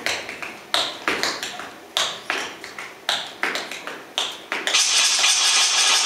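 Tap shoes striking a wooden stage floor: about a dozen sharp, separate taps at an uneven walking pace, each ringing briefly in the hall. Music starts near the end.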